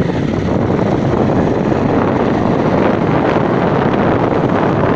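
Loud, steady wind buffeting on the microphone of a camera carried on a moving motorbike, with the running noise of the ride underneath.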